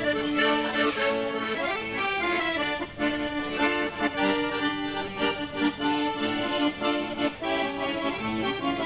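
Two piano accordions playing a tune together, a moving melody over held chords.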